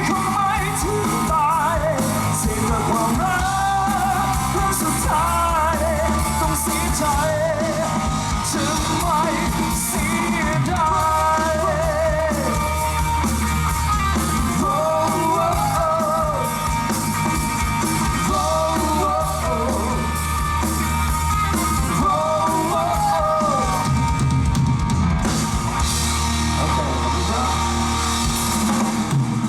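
Live rock band playing a Thai pop-rock song: drum kit and bass under a wavering, bending lead melody line.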